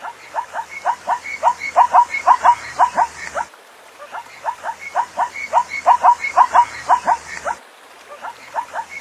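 Zebra calling: a rapid series of short, rising, bark-like yelps, about four a second. The calls come in bouts of roughly three and a half seconds, broken twice by brief pauses.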